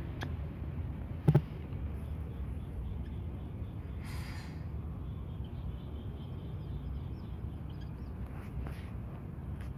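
Cats eating food off a paper towel, faint ticks of chewing near the end, over a steady low background rumble. A single sharp click comes about a second in, and a short hissing noise about four seconds in.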